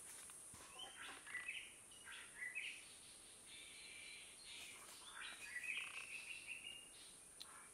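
Faint forest birds calling: runs of short chirps and stepped warbling notes in two spells, the second starting about halfway through, over a steady high hiss.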